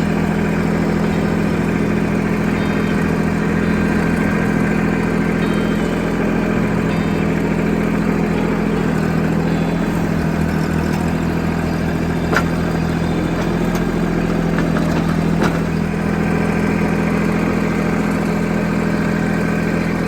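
An engine running steadily at a constant speed, with a couple of faint clicks about twelve and fifteen seconds in.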